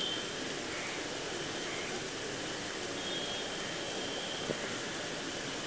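Steady outdoor background hiss, like distant traffic, with a few faint short high tones and one sharp click near the end.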